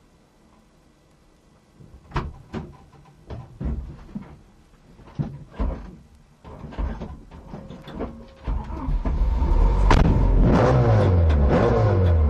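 A string of sharp knocks and thuds inside the Vauxhall Astra rally car as the crew climb back in and doors shut. About eight seconds in the engine comes up loud and is revved, its pitch rising and falling.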